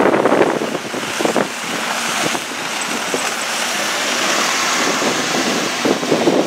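City bus driving past close by over a slushy, snowy road, engine and tyre noise building as it passes and then pulling away.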